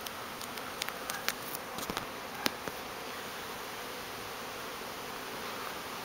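Honeybee swarm buzzing as the cluster breaks loose and the bees take to the air: a steady, even hum, with a few faint clicks in the first couple of seconds.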